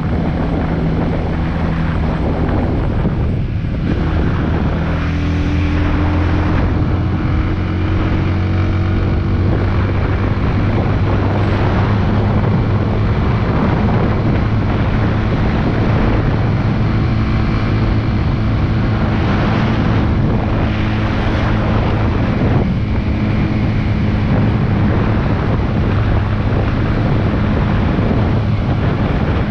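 Big Boy SuperLight 200cc motorcycle engine running steadily at road speed, its note rising a little a few seconds in and shifting again later as the throttle changes, with wind rushing over the microphone.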